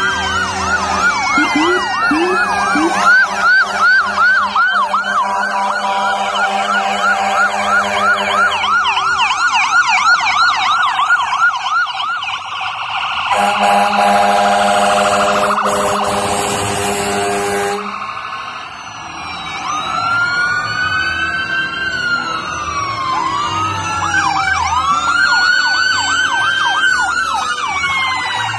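Several emergency-vehicle sirens sounding at once from passing fire, police and ambulance vehicles. Fast yelping sweeps give way after about twelve seconds to slow rising-and-falling wails, several overlapping. Long steady horn blasts run through the first eight seconds and again for several seconds in the middle.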